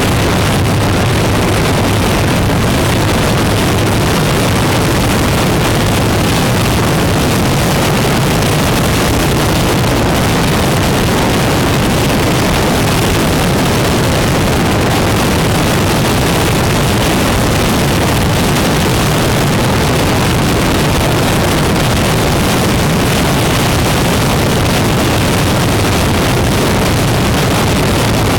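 Motorcycle engine running steadily at cruising speed, with heavy wind rushing over the microphone.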